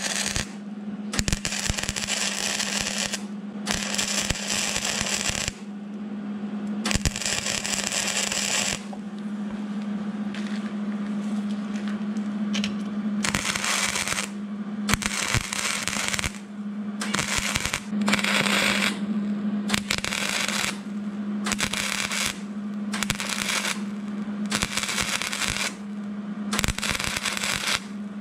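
Hobart 140 wire-feed MIG welder running flux-core wire, its arc crackling and sputtering in repeated trigger bursts while plug welds are laid into sheet steel. The bursts run a few seconds each at first, then come shorter and quicker, about a second apiece. A steady hum runs underneath.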